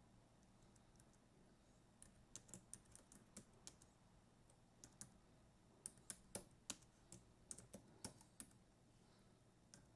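Keys of a Jelly Comb foldable Bluetooth keyboard clicking as someone types, in short irregular runs of keystrokes. The typing starts about two seconds in and is busiest a little past the middle.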